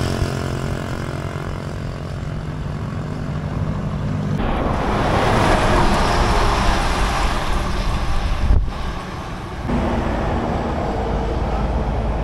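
Road vehicle noise: a steady low engine hum, then a louder rushing noise from about four seconds in, with a couple of abrupt cuts.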